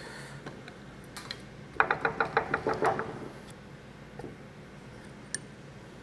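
Light metallic clicking from small steel valve-train parts being worked at a small-block Chevy 283 cylinder head while the valve keepers are removed: a quick run of about eight clicks with a short ring about two seconds in, and a few single ticks either side.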